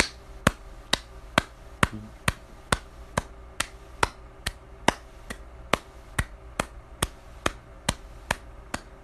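A wall light switch flicked on and off over and over: a sharp click a little more than twice a second, evenly spaced.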